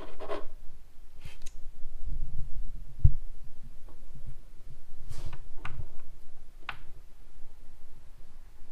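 Handling noises: a few light clicks and low thumps, with one sharper knock about three seconds in.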